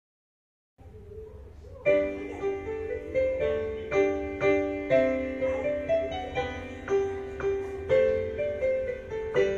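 Digital piano being played: a melody over chords, with notes struck at an even, moderate pace. It comes in softly just under a second in and opens up fully about two seconds in.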